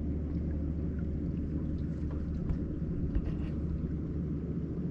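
A boat's motor running steadily at slow speed, a low even hum, with a few faint clicks about two to three and a half seconds in.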